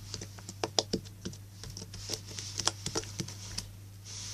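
Slime being handled and worked into a bubble, making a run of small, irregular sticky clicks and pops.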